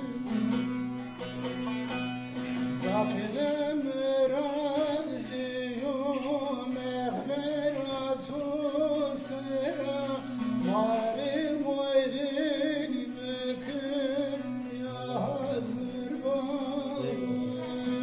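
Man singing a folk song to his own bağlama (long-necked saz), the plucked strings running on under the voice. The first few seconds are instrument alone, and the singing comes in about three seconds in.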